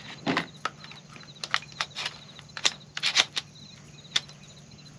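12-gauge shells being pushed one by one into a Kel-Tec KSG's magazine tube: a string of sharp, irregular clicks and snaps, over a faint steady low hum.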